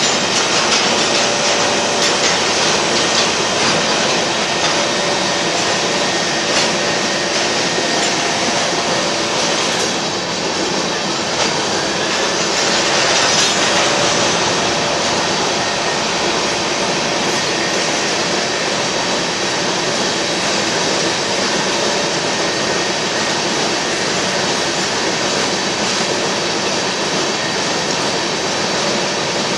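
Union Pacific freight train of covered hopper cars rolling steadily past, a continuous rumble of wheels on rail with occasional clicks over rail joints. Thin steady wheel squeal runs under the noise.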